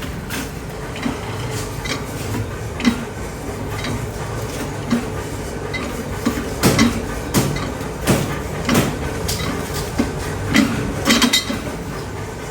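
Irregular metallic clanks and knocks of iron parts and tools being struck or handled, over a steady low hum of workshop machinery. The knocks come unevenly, thickest in the second half.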